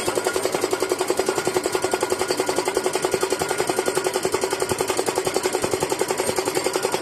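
Hydraulic pile driver's hammer striking in rapid, even strokes, roughly nine a second, with a steady running hum underneath.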